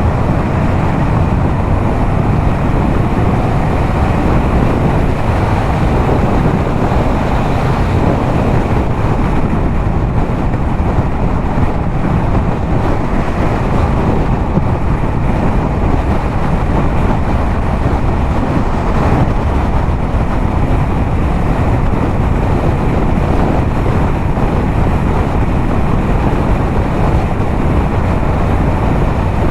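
Yamaha MT-07's parallel-twin engine, fitted with a LeoVince aftermarket exhaust, running steadily at highway cruising speed, mixed with wind buffeting the camera microphone.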